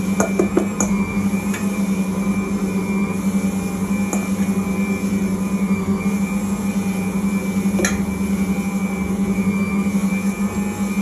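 Ankarsrum Original Assistant stand mixer running with a steady motor hum as its rotating steel bowl kneads pizza dough. A few sharp clicks come through, several in the first second and a stronger one near the end.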